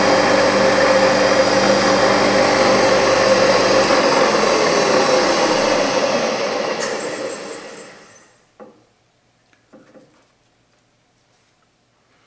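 Milling machine spindle running at its top speed of 2950 rpm with a small drill in the chuck, then switched off and spinning down, its whine falling in pitch and fading out over about four seconds. A few faint clicks follow.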